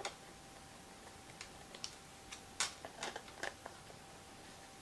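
Paper card and washi tape being handled on a cutting mat: a few short, faint rustles and taps, the loudest about two and a half seconds in.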